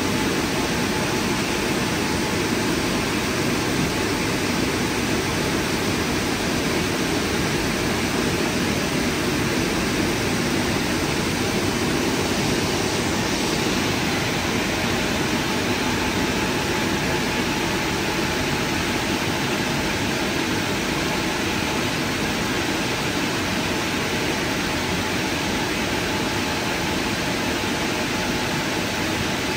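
Car wash drying blowers running steadily, a constant rush of air with a faint steady tone in it, as the gantry dries the car at the end of the wash programme.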